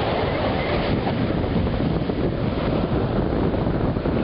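Wind blowing on the microphone over the steady wash of surf breaking on the shore.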